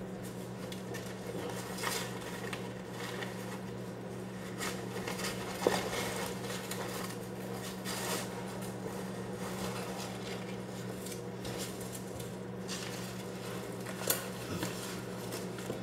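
Handling noise as a replica championship belt is pulled out of its cloth carrying bag: rustling with scattered metallic clinks and knocks from the belt's plates, the sharpest about six seconds in and again near the end. A steady low hum runs underneath.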